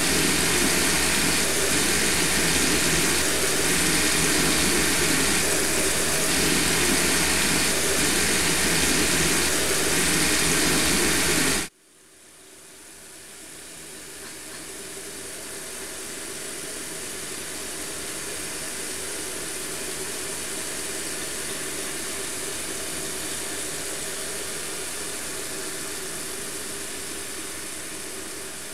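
A steady loud hiss with a faint low hum, cutting off suddenly about twelve seconds in, then fading back in as a quieter steady hiss.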